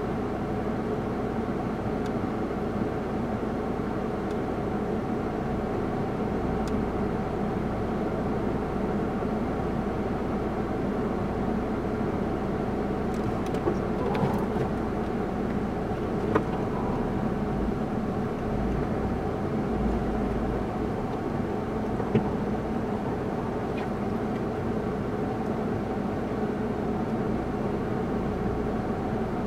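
Car running, heard from inside the cabin as a steady hum, with a few small clicks around the middle.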